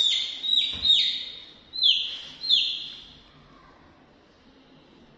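A chick peeping loudly: a run of short, high cheeps that fall in pitch, about two a second, stopping about three seconds in.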